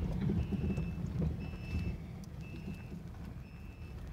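Low rumble of a car driving, heard from inside the cabin, with a high electronic beep repeating about once a second, each beep about half a second long.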